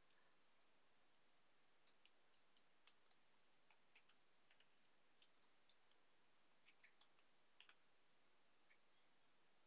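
Faint typing on a computer keyboard: an irregular run of short key clicks that stops about eight seconds in, with one last click shortly after.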